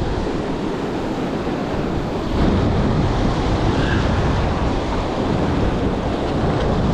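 Rough sea surf breaking and washing over and between the rocks of a reef, with wind buffeting the microphone. The surge grows louder about two and a half seconds in.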